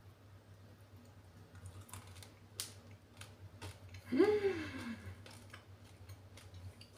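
Scattered light clicks and crinkles of a plastic candy bag being handled. About four seconds in, a woman gives a short hummed "hmm" whose pitch rises and then falls.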